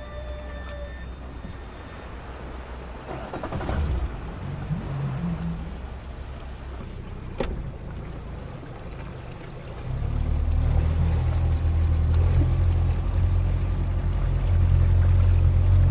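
Small boat's outboard motor idling low, with one sharp click near the middle. About ten seconds in it is throttled up and runs steadily louder under way.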